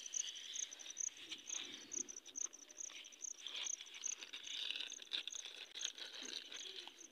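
An insect, likely a cricket, chirping steadily in short high pulses about two to three times a second, with the crinkling and rustling of a thin plastic bag being handled and opened.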